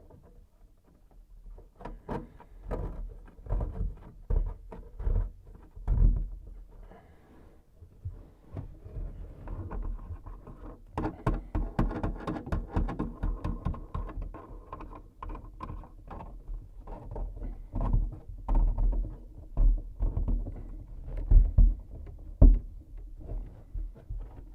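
Irregular clicks, knocks and rattles of tools and faucet mounting hardware being handled and tightened under a kitchen sink, with a busier run of rapid clicking partway through.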